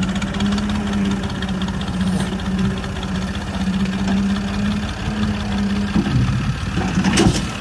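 A farm tractor's diesel engine running at a steady idle, a low even hum with a fast regular firing beat. About six to seven seconds in, a brief louder, irregular sound rises over it.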